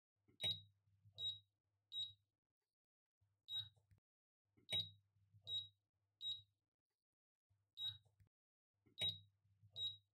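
Touch controls of a glass-top electric hob beeping about ten times at irregular intervals, one short high beep per finger press, some with a soft tap, as the cooking zones' power setting is stepped down to zero.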